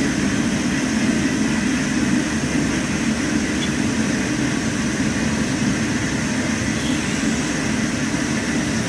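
A steady mechanical drone of machinery running, unchanging throughout, with a strong low hum.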